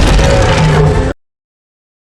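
A single Grimlock sound effect, the robot Tyrannosaurus of the Transformers films: one loud, dense burst a little over a second long that cuts off suddenly.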